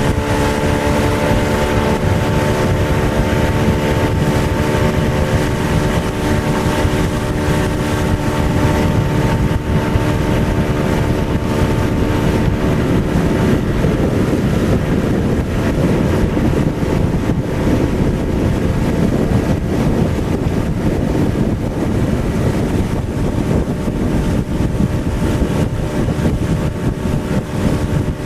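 Motorboat engine running steadily under way, with wind buffeting the microphone and a rush of water. About halfway through, the engine's hum fades under the wind and water noise.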